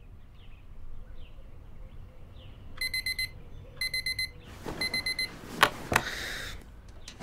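Digital alarm clock beeping in three quick bursts of rapid high beeps, then two sharp knocks followed by rustling.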